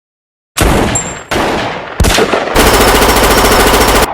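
Cartoon gunshot sound effects: three loud single shots, each dying away, then a long burst of rapid automatic fire that stops abruptly.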